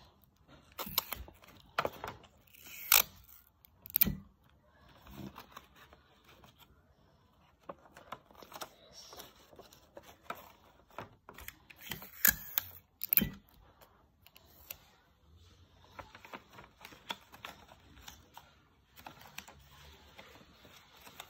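Sheets of paper being handled and folded: intermittent rustling and creasing with a few sharp clicks and knocks, the loudest in the first four seconds and again about twelve to thirteen seconds in.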